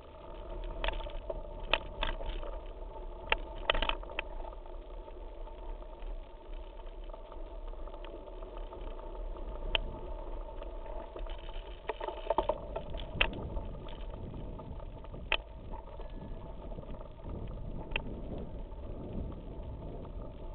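Mountain bike ridden over a gravel forest trail: a steady rumble of tyres and drivetrain, with sharp rattles and knocks as the bike jolts over rough ground, several clustered in the first few seconds and again about halfway through.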